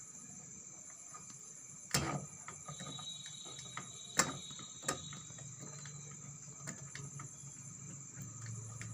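Steady high-pitched chirring, typical of crickets, over a low hum, broken by a few sharp clicks and knocks about two seconds and four to five seconds in.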